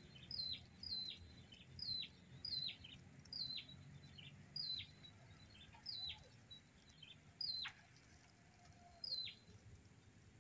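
A bird calling: a short, faint note that sweeps downward in pitch, repeated about twice a second at first and slowing to about one every second and a half.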